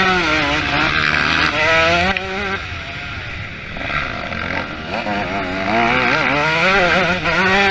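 Motocross bike engines revving hard and easing off again and again, their pitch rising and falling quickly. The sound dips for a couple of seconds midway, then builds again.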